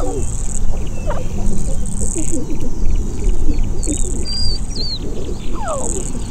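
Grassland ambience: birds chirping and calling with short falling whistles, insects buzzing in short repeated pulses, over a steady low rumble.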